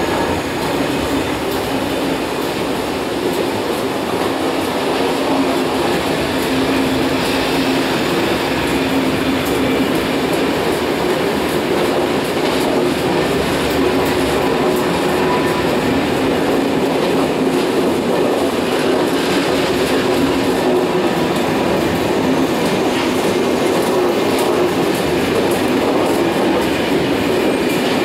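Train running on the rails: steady, loud wheel-on-track noise with a faint steady hum underneath, unchanging throughout.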